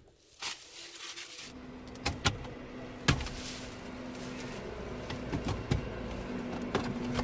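Plastic clicks and knocks from a Toyota Revo's dashboard glove box being unlatched, opened and handled: a few sharp clicks spread out over several seconds, over a faint steady hum.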